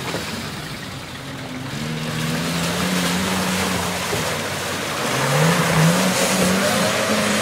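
Small four-wheel drive's engine revving as it drives through a shallow river, with water splashing and churning around the wheels. The engine note climbs twice, about two seconds in and again near the five-second mark, where the splashing also grows louder.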